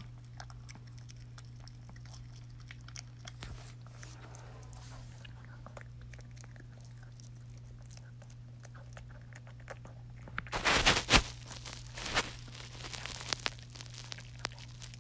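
Small dog crunching and chewing a hard treat: scattered small crunches, with a loud burst of crunching about ten to eleven seconds in and a few more after it.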